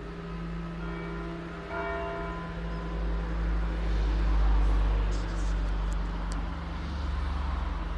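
The single great bell of St. Mariä Himmelfahrt in Ebrach swinging out its last strokes: one strike about two seconds in, then its hum dies away. A low rumble swells in the middle and is the loudest thing, with a few faint clicks after it.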